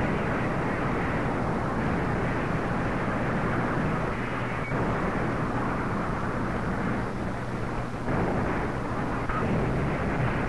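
A steady low rumble with a constant hum underneath, holding at an even level with no separate blasts.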